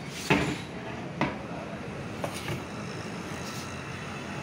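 Two knocks and a small click of a heavy 60 V 2 kW electric motor being handled and stood upright on a wooden workbench, the first knock the loudest, over steady background noise.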